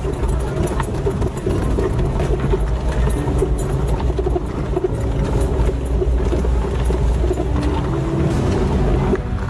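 Off-road 4x4 vehicle's engine running steadily, with frequent knocks and rattles over rough ground.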